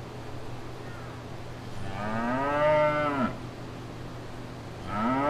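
Cow mooing twice. One moo comes about two seconds in and lasts over a second, its pitch rising then falling. A second moo starts near the end. A steady low hum runs underneath.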